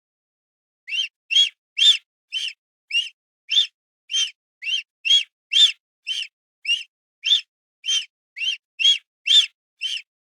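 A bird calling a steady series of short, high chirps, about two a second.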